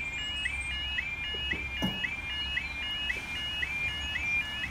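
Level crossing yodel alarm sounding, a fast two-tone warble repeating about two and a half times a second, which cuts off near the end.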